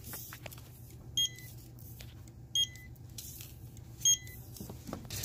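Checkout barcode scanner beeping three times, evenly, about a second and a half apart, as coupons are scanned at the register, over a steady low hum.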